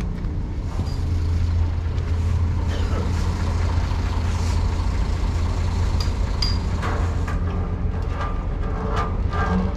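Steady low machinery hum on a ship's deck, with a few faint knocks and clicks.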